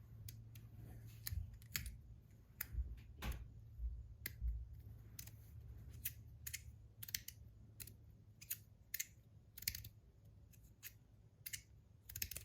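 Stainless-steel Rapt fidget toy being worked in the hand, giving sharp metallic clicks at an irregular pace, some in quick pairs.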